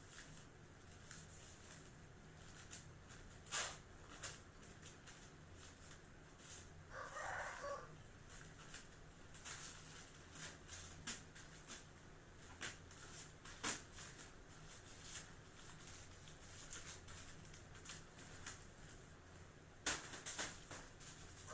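A rooster crowing once in the background, about seven seconds in, among scattered faint clicks and taps.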